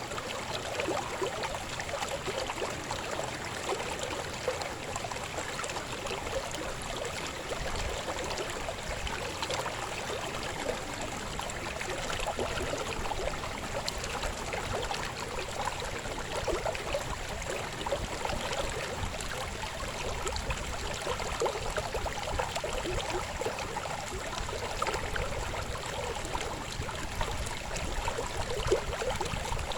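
Shallow river babbling over stones, a steady flow of water with constant gurgling and splashing.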